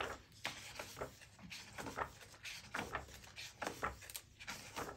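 Pages of a cookbook being turned by hand: a series of faint paper swishes and rubs as a hand sweeps across the pages.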